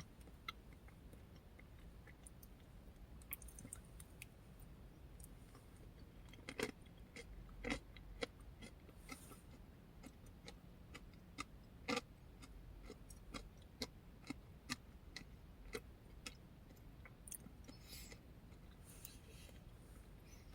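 Quiet chewing of a crunchy yogurt parfait with granola and oats: a scattered handful of soft crunches and clicks over low room tone.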